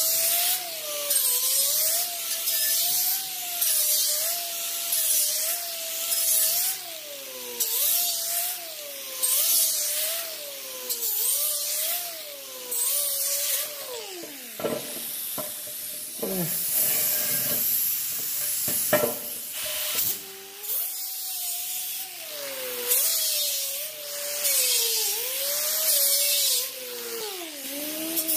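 A power tool spinning a Roloc bristle disc against the bare metal of a motorcycle fuel tank, brushing a swirl pattern into it. Its whine sags in pitch and recovers each time the disc is pressed in, over a scratchy hiss. Around the middle the whine drops away and winds back up several times.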